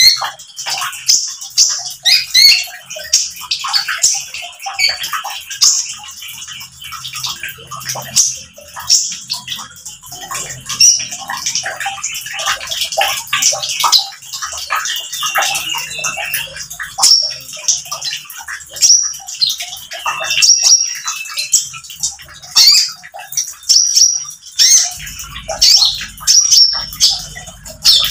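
Male konin (Van Hasselt's sunbird) singing full out ('nembak'): a rapid string of short, high twittering chirps and trills with hardly a break, over trickling water.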